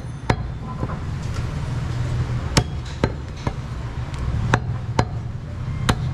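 Heavy cleaver chopping goat meat on a wooden stump block: about seven sharp knocks at uneven intervals, over a steady low hum.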